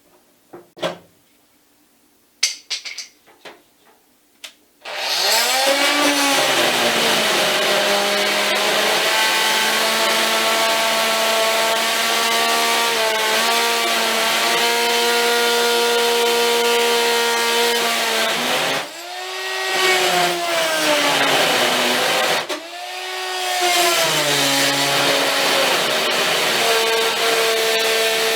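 A few clicks and knocks, then an oscillating multi-tool starts up about five seconds in and runs with a loud, steady whine as it cuts the steel locking tabs on a tool cart's lid. Twice the whine drops away and winds back up again. The cut goes slowly: the steel proves too tough for the multi-tool.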